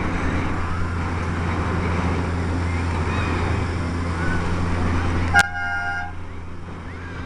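Miniature ride-on park train's horn giving one short toot about five seconds in, as the train comes out of the tunnel, over a steady low hum.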